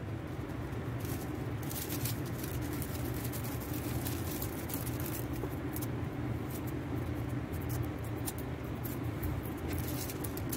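A steady low hum from a motor running in the background, with scattered soft clicks and crinkles of gift-wrap paper and adhesive tape being handled.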